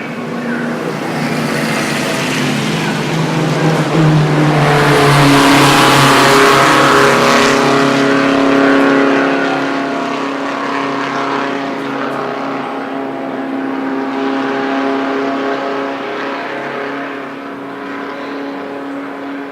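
Vintage Indy race car engine running at high revs as it passes, growing louder to its loudest around the middle and then fading away.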